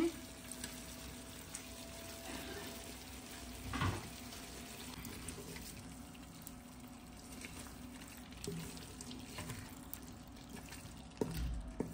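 Chicken and sliced peppers frying gently in a metal pot, stirred with a wooden spoon, with a few soft knocks of the spoon against the pot. A faint steady hum runs underneath.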